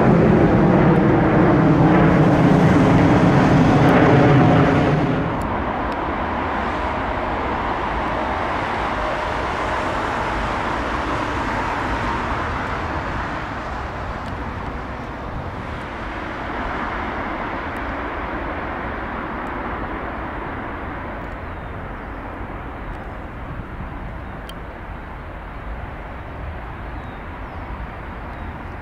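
Jet airliner passing close. Its engines are loud at first with a steady droning tone, drop off sharply about five seconds in, then fade away slowly.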